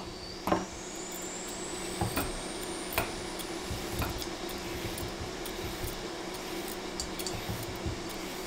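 A raw carrot is scraped and peeled with a chef's knife and then a vegetable peeler: a few short scraping strokes over a steady low hum, with a faint high whine rising in the first few seconds.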